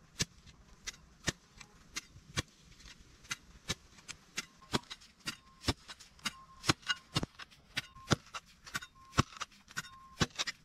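Long-handled narrow steel digging spade jabbing over and over into hard, gritty soil: a run of sharp clicks and knocks, about two to three a second.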